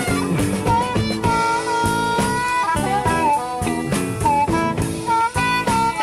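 Instrumental break in an electric Chicago blues song: a lead solo with bent notes over a full band with drums.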